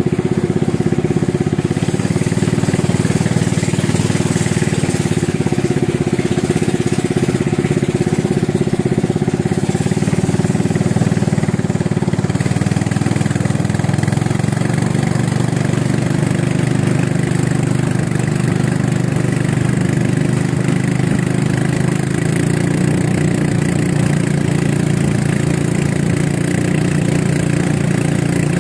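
A small engine running steadily, its pitch shifting slightly about twelve seconds in.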